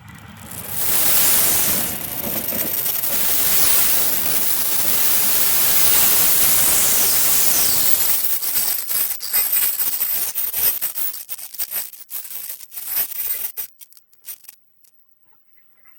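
A train passing close by: a loud, even rushing noise, then a run of sharp clicks and clatter that thins out and stops about fourteen seconds in.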